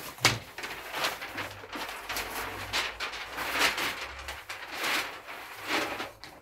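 Paper and a wooden ruler being handled on a table: a series of short rustles and scrapes every second or so.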